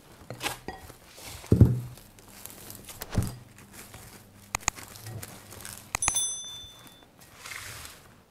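Handling of a ceramic bowl being covered with plastic cling film on a table: a few dull knocks as the bowl is moved and set down, faint crinkling of the film, and a short ringing clink about six seconds in.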